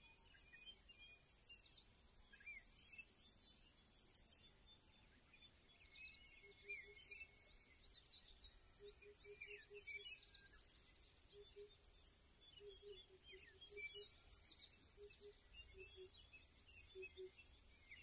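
Faint birdsong: many small overlapping chirps and twitters from several birds. From about six seconds in, short low notes repeat, often in pairs or quick runs.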